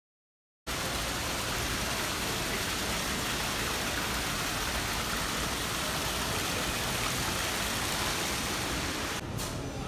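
Indoor fountain's water jets splashing into a stone basin: a steady rushing hiss that cuts in abruptly a little under a second in.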